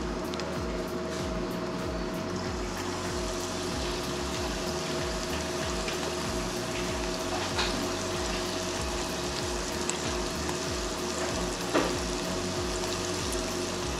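Breaded sand fleas (mole crabs) sizzling steadily in hot oil in an electric deep fryer, with a few light clicks as pieces go into the wire basket. Soft background music with a steady low bassline plays underneath.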